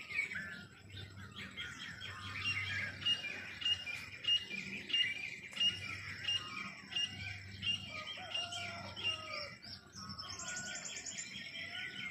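Several newly hatched chicks peeping, a dense run of short, high overlapping chirps, some repeated in quick series.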